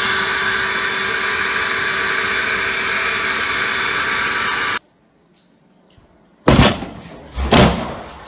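Handheld leaf blower running steadily, a loud rush of air with a fan whine, cutting off abruptly about five seconds in. After a short quiet, two heavy thumps about a second apart.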